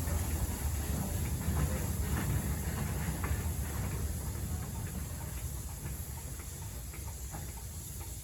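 USATC S160 2-8-0 steam locomotive running light as it runs round its train: a low rumble with faint clanks, slowly fading as it moves away.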